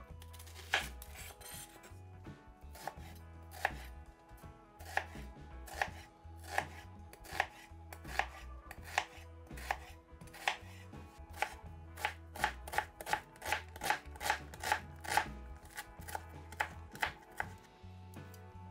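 Chef's knife chopping an onion on a bamboo cutting board, each stroke ending in a crisp knock of the blade on the wood. The cuts come singly about a second apart at first, then speed up to two or three a second in the second half.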